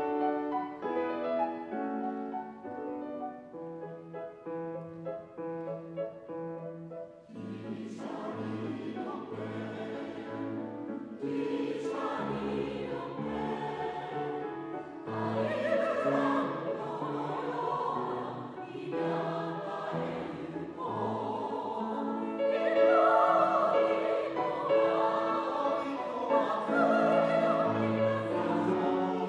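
Grand piano playing alone for about the first seven seconds, then a mixed choir of women's and men's voices comes in singing with the piano accompaniment, growing louder toward the end.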